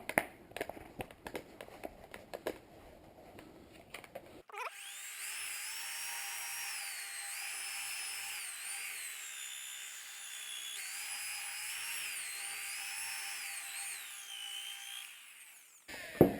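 Rotary polisher with a lambswool buffing pad running on painted bodywork, taking the haze out of freshly buffed paint; its whine steps and glides up and down in pitch as the speed changes. It starts abruptly a few seconds in, after some light clicks and handling sounds, and cuts off near the end.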